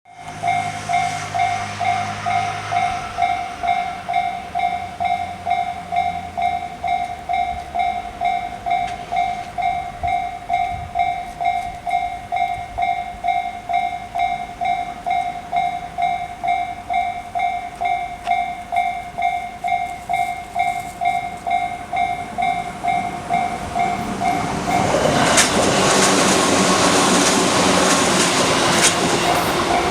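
Japanese level-crossing electronic warning bell of the Tobu Tojo Line type, pulsing steadily about twice a second. About 25 seconds in, a Tobu 8000 series train passes, its running noise and wheel clatter rising loud over the bell, which keeps ringing.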